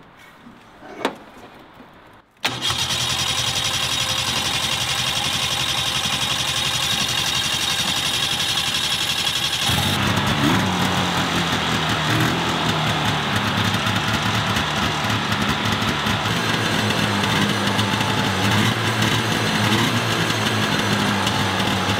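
A snowmobile engine catches about two seconds in, after one knock, and runs steadily. About ten seconds in its sound changes, becoming lower and fuller with less hiss.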